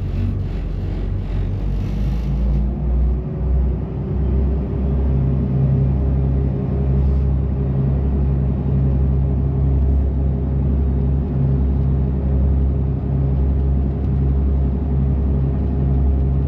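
Commercial gillnetter's inboard engine running underway, a steady low rumble that rises slightly in pitch a few seconds in as it picks up power.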